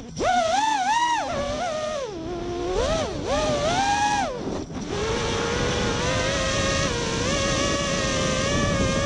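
Brushless motors and 3D props of a 5-inch FPV racing quadcopter (Emax RS2205 2300kv) whining, the pitch swooping up and down with throttle and dropping out briefly several times during flips, then holding a steady whine for the last few seconds.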